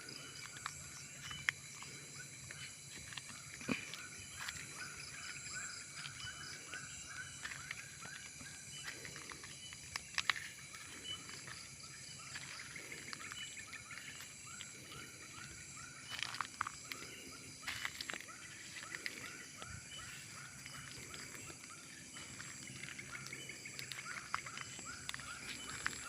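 Forest ambience: a steady high-pitched insect drone with many short calls repeating a few times a second from small animals, and a few sharp clicks.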